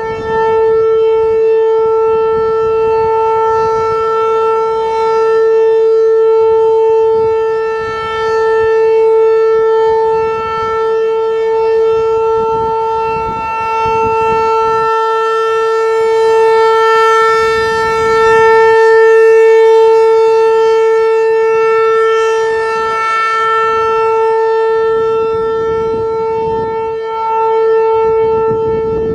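Federal Signal 508-128 rotating outdoor warning siren sounding its steady Full Alert test tone: one unchanging pitch that swells and fades in loudness every several seconds as the siren head turns.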